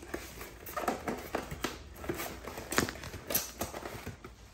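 Cardboard box and plastic packaging being handled as a small RC crawler is pulled out of it: a string of irregular light knocks and rustles.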